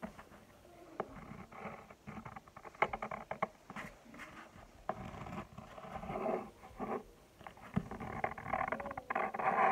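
Scratchy strokes of a drawing pen on paper, coming in short runs with brief pauses, with a few light knocks.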